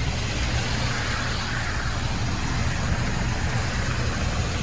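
Steady rumbling roar of a violent windstorm battering a car, with no let-up.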